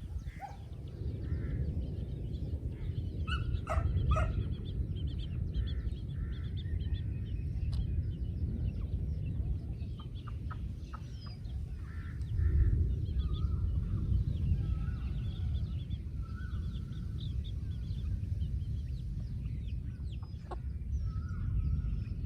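Domestic chickens clucking in scattered short calls over a steady low rumble that is louder than the calls.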